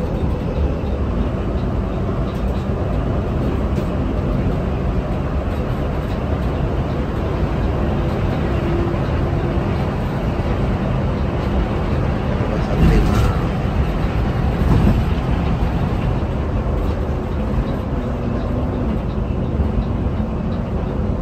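Inside a Mercedes-Benz OH 1626 coach at highway speed: steady diesel engine hum under road and tyre rumble, with a brief louder rush a little past the middle.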